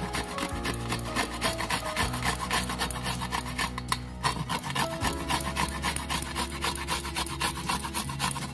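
Peeled cauliflower stalks rubbed back and forth on a flat metal hand grater: a quick, even run of rasping strokes, several a second, over soft background music.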